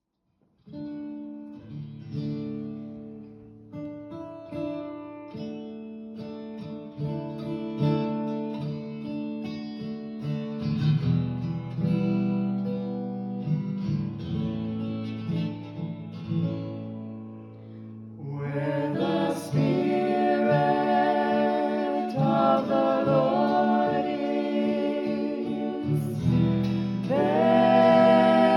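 Acoustic guitar music with plucked notes; a singing voice comes in about two-thirds of the way through and the music grows louder.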